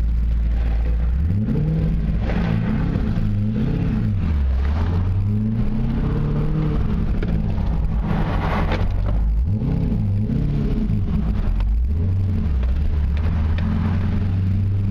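Supercharged 2002 Corvette Z06's LS6 V8, heard from inside the cabin while driving. The engine note rises and falls several times as it accelerates and eases off, then settles to a steady low run near the end.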